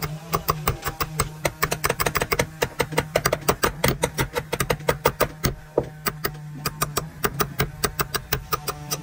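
Rapid, uneven hammer knocks, several a second, over a steady low engine hum.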